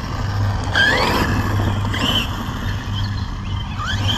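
Electric RC truck's brushless motor whining as the truck speeds across grass. The pitch rises sharply on each burst of throttle, about a second in and again near the end.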